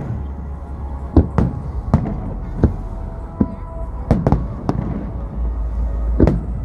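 Aerial fireworks display going off: a string of sharp bangs at irregular intervals, sometimes two close together, over a continuous low rumble of further bursts.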